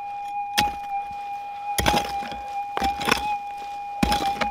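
A digging tool strikes into the ground and a tree root in the hole, about five sharp blows spaced a second or so apart. Under them runs the steady high hum of a metal detector's threshold tone.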